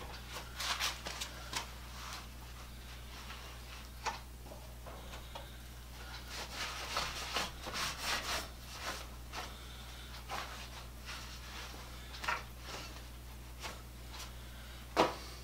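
Irregular rubbing and scraping of hands and a rag working over an unplugged bench-mounted electric motor and its abrasive wheel, with a few light knocks, the loudest near the end.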